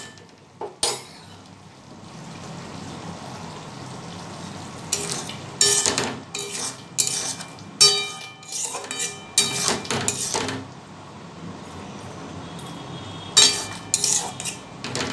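Metal spatula stirring a simmering curry in a metal kadai, scraping and clanking against the pan in three short bouts, some strokes leaving a brief metallic ring, with a steady low simmering hiss between them. The curry is being stirred with ghee as it finishes cooking.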